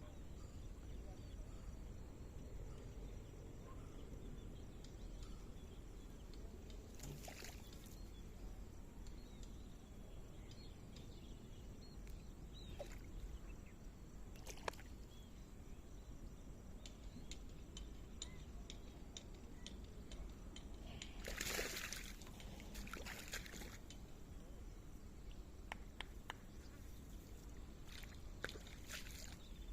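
Faint water sloshing and trickling over a low steady outdoor background, with a few short splashes and scattered small clicks.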